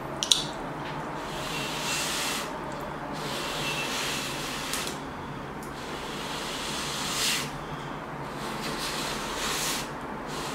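Mouth sounds of eating hot instant ramen noodles off a fork: several long, airy slurps with short pauses between them, and a sharp click just after the start.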